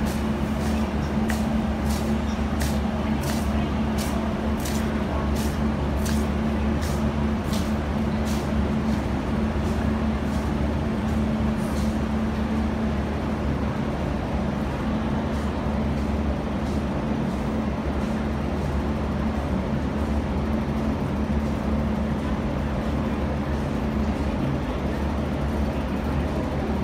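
An MTR Kwun Tong line electric train moving out along the platform, its wheels clicking over the rail joints about twice a second. The clicks fade away after about twelve seconds, leaving a steady low hum.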